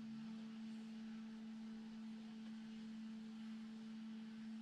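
Faint steady hum, a single low tone with a weaker one an octave above, over faint hiss.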